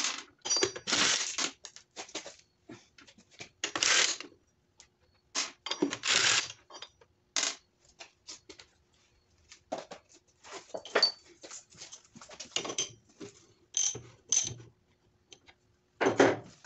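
Irregular metallic clinks and clatters of connecting-rod caps, nuts and a socket wrench being handled and set down on a wooden workbench as the last rod caps come off a Honda D16Y7 crankshaft.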